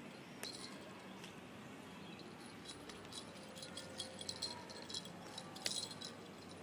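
Small dog's booties tapping on concrete pavement as it walks: a run of light, uneven clicks, busiest from about halfway through, with the sharpest tap near the end.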